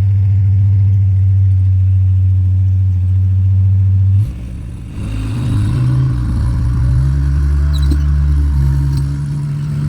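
Skid steer engine running steadily. About four seconds in the sound changes abruptly to the engine running higher and working harder, with some rattling.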